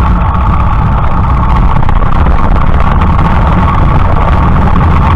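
Motorcycle riding at low speed through a street, its engine running with a steady, loud rumble, picked up close from a camera mounted low on the leg guard.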